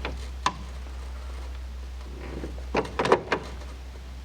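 A few light clicks and knocks from hand tools and sheet-metal parts being handled: one about half a second in, then a quick cluster of about four near the end, over a steady low hum.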